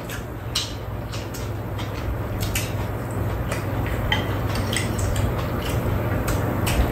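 Two people eating from bowls: chopsticks and a spoon clicking lightly against the dishes now and then, with chewing, over a steady low hum.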